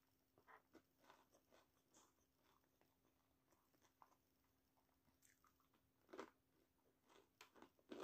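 Faint close-up chewing and mouth sounds of someone eating battered, deep-fried quail eggs (kwek kwek), soft wet clicks, with a louder smack about six seconds in. A faint steady hum sits underneath.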